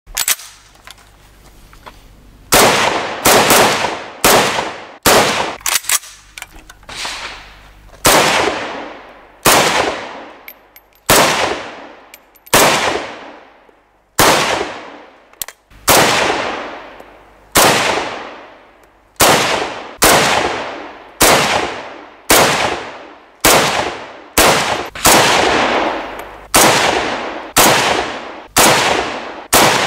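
CZ 858 Tactical rifle (the civilian vz. 58) in 7.62×39mm firing single shots at a steady pace, roughly one a second, each shot trailing off in a short echo. The shooting begins about two and a half seconds in.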